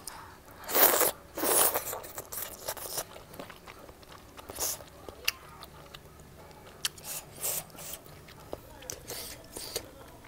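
A person eating close to the microphone. Two loud crunching bursts come about a second in, then scattered small clicks and smacks of chewing.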